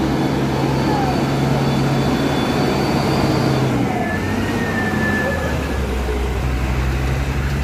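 Diesel engine of a Mitsubishi Fuso Fighter truck running steadily under load as the truck drives through deep muddy water, with its tyres sloshing through the mud. The engine note drops lower about four seconds in as the truck goes past.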